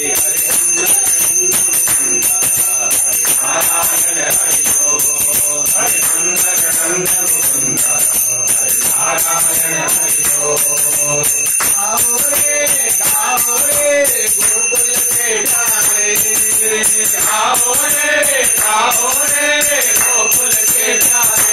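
Devotional singing with a bell ringing rapidly and without pause behind it.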